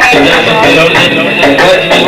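Middle Eastern folk music: a held, reedy melody over a steady drum beat.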